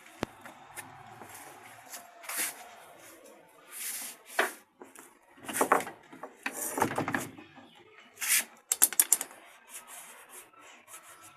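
Hands and tools working on a washing machine's plastic body: irregular clattering, scraping and clicking, with a quick run of clicks about nine seconds in.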